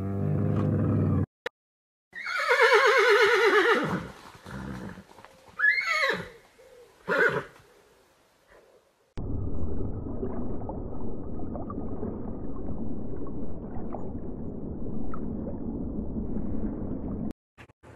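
Horse whinnying: one long wavering whinny about two seconds in, then two short calls around the sixth and seventh seconds. It is preceded by a brief low camel grunt and followed by several seconds of steady low underwater rushing noise.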